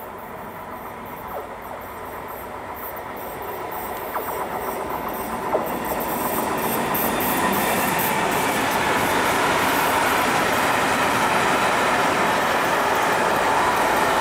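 Container freight train hauled by an electric locomotive approaching and passing. The rolling noise of its wheels on the rails grows steadily louder over the first several seconds, with a couple of sharp clicks along the way. It then settles into a steady loud rumble as the container wagons roll by.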